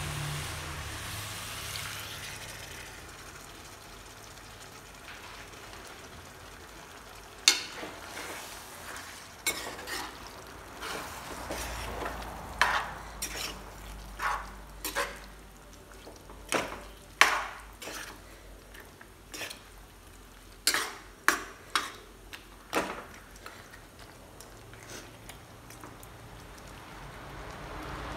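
Chicken curry frying in a pan with a soft sizzle while a spoon stirs it, knocking and scraping against the pan about once or twice a second for some fifteen seconds.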